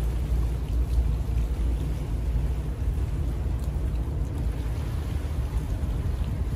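Steady low rumble of wind buffeting the microphone, with waves washing against the shore rocks.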